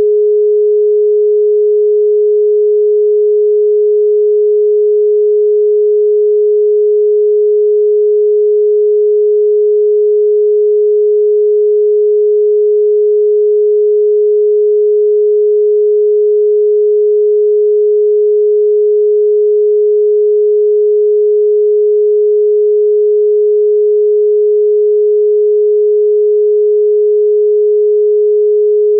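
Obsolete Austrian telephone dial tone (dial tone B): a single continuous 420 Hz tone, steady and unbroken. It signals that the line is connected and ready for dialling.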